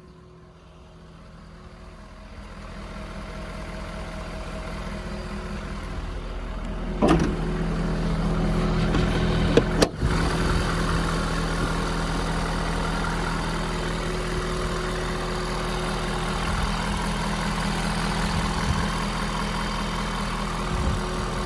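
Service-truck air compressor unit running steadily while pumping air. Its engine note grows louder over the first several seconds, then holds. There are a couple of brief knocks about seven and ten seconds in.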